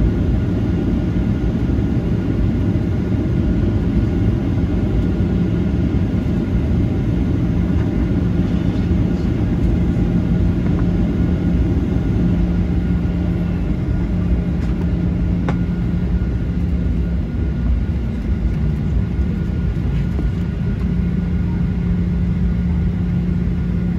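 Cabin noise of a Boeing 737-900ER taxiing on its CFM56-7B engines: a steady low rumble with a steady hum that fades for a few seconds about two thirds of the way through.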